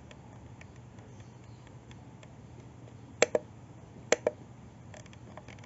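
Line 6 HX Stomp's push-button selector knob being pressed: two sharp double clicks (press and release) about a second apart, with faint ticks from turning the knob, over a low steady hum.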